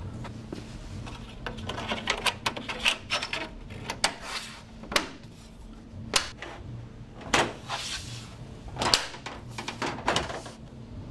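Aluminium gutter and fascia profiles being handled and clipped into place: a run of irregular clicks, knocks and scrapes, with the sharpest knocks about five, seven and a half and nine seconds in.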